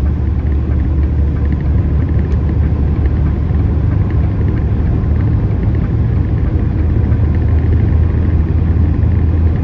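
Steady low rumble of a loaded DAF truck-and-trailer's diesel engine and road noise, heard from inside the cab.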